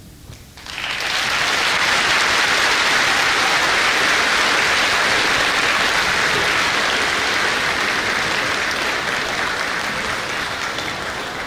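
A large audience applauding, starting about a second in, holding steady, then easing off slightly near the end.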